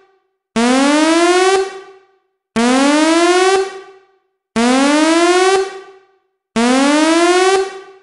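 Alert siren sounding a buzzy tone that sweeps upward in pitch for about a second, then fades with a short echo. It repeats every two seconds, four times, as a danger warning signal.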